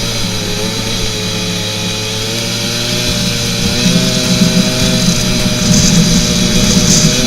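Snowmobile engine running steadily under way, its pitch dipping slightly and then rising a little about halfway through.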